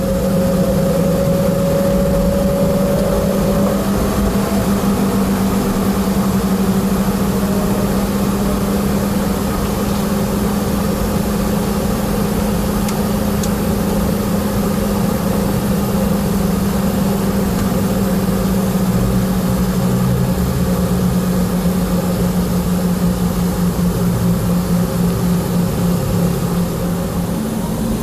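Boeing 717's Rolls-Royce BR715 jet engines running at idle, a steady hum heard from inside the passenger cabin. Near the end a rising whine begins as the engines start to spool up for the takeoff roll.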